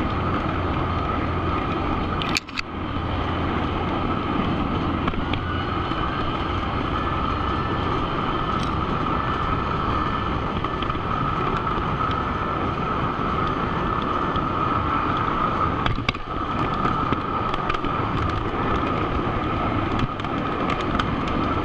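O scale model train running on three-rail track, heard from a camera riding on the train: a steady rolling rumble of wheels on rail with a steady whine over it, cutting out briefly twice, about two seconds in and near sixteen seconds.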